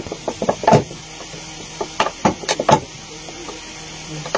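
Clear plastic bottle handled with work-gloved hands, giving two clusters of sharp clicks and crinkles, one at the start and one about two seconds in, over a steady low hum.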